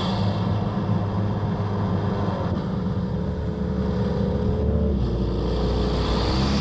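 2017 Ford Escape's turbocharged 2.0 EcoBoost four-cylinder, with an open airbox and drop-in filter, running at a steady, even pitch with little turbo whistle. Its deep hum grows louder about five seconds in.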